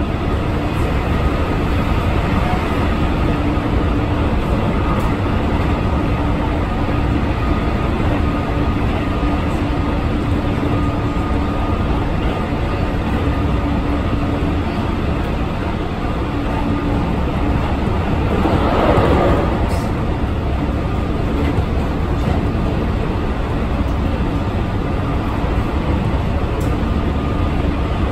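Keihan limited express electric train running at speed, heard from inside the carriage: a steady rumble of wheels on rail with a faint steady hum. About nineteen seconds in the noise briefly swells louder for about a second.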